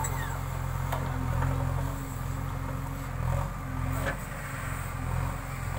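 Diesel engine of a backhoe loader running steadily, with a few faint clicks.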